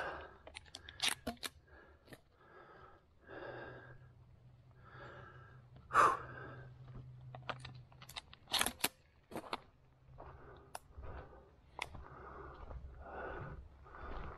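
Footsteps on a gravel road with sharp crunches and clicks, and heavy breathing about once a second.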